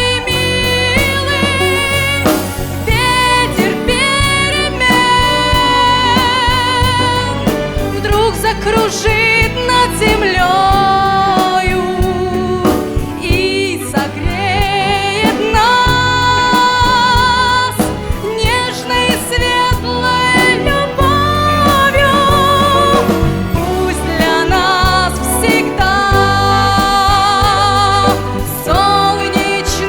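A song: a solo voice singing a slow melody with vibrato over instrumental accompaniment.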